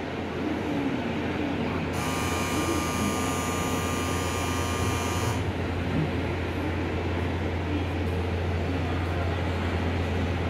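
Stationary 383-series electric express train humming steadily at the platform. A buzzing electronic signal tone switches on about two seconds in and cuts off suddenly about three seconds later.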